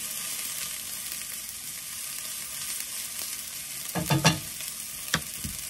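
Peppers and onions sizzling steadily in a skillet. About four seconds in, a spatula stirs them, with a few sharp clatters and scrapes against the pan.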